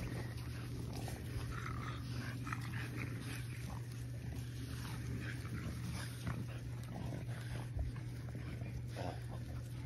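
French Bulldog puppies at play, making scattered short high-pitched squeaks and yips, over a steady low hum.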